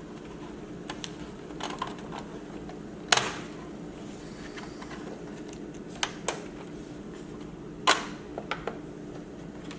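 Sharp clicks and taps of laptop parts and tools being handled during disassembly, about eight in all, the two loudest about three seconds and about eight seconds in, over a steady low hum.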